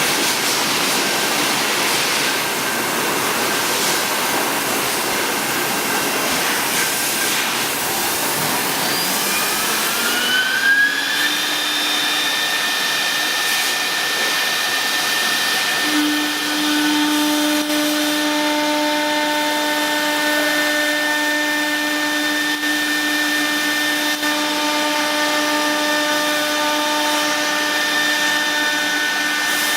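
CNC router running: its noise is rough at first, then the spindle's whine rises in pitch for a few seconds and settles into a steady high whine made of several tones. A further low hum joins about halfway through.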